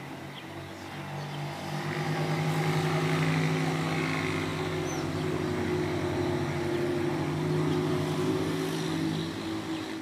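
Engine drone with a steady low pitch, swelling in over the first couple of seconds and then holding steady.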